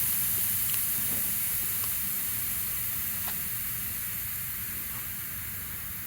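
Air hissing out of a punctured car tire through a hole just reamed out for a plug, slowly getting fainter as the tire loses pressure.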